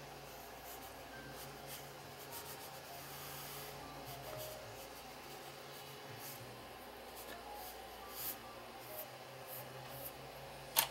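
Flat watercolour brush rubbing and dragging across rough watercolour paper in faint scratchy strokes, with a sharp click near the end.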